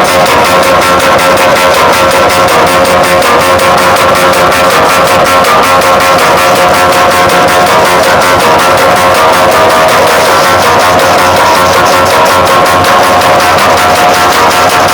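Music played loud through a large PA sound system of stacked loudspeakers, with a fast, steady beat and plucked-guitar lines.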